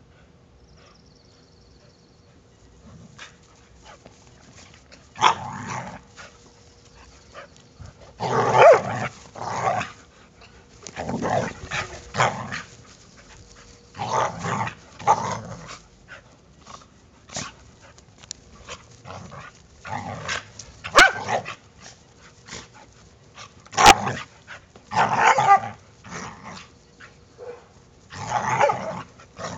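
Two Brittany spaniels play-fighting: repeated bursts of growling and snarling mixed with barks, starting a few seconds in. There are a couple of sharp knocks in the second half.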